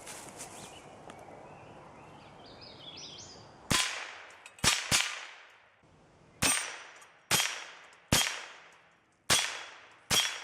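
Eight shots from a Ruger 10/22 semi-automatic .22 rifle fired at a steel target, unevenly paced, starting about three and a half seconds in, with a ringing decay after each shot.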